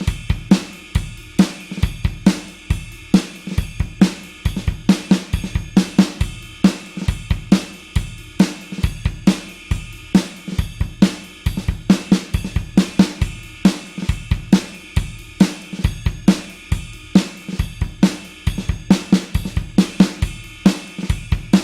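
Drum kit playing a steady rock beat, with kick drum, snare, hi-hat and cymbals hitting in a dense, regular rhythm. The beat cuts off abruptly near the end.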